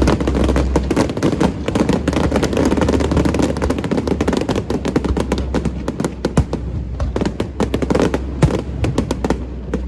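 Aerial fireworks bursting and crackling in a dense, rapid barrage of sharp pops, thinning out to scattered louder bangs near the end.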